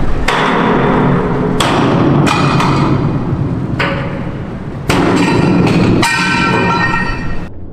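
Hammer blows on a steel ship-support stand, about six strikes a second or so apart, each followed by a metallic ring, over steady yard noise; the sound cuts off abruptly near the end.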